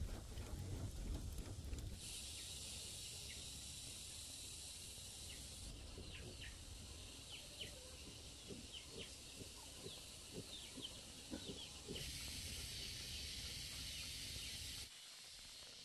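Cooking fire crackling with small scattered pops over a steady high hiss. The hiss turns abruptly louder and quieter a few times.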